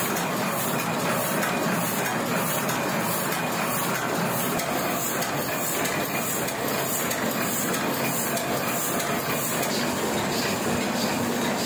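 Sheet-fed offset printing press running, a steady mechanical clatter with an even, quick rhythm as it feeds and prints sticker sheets.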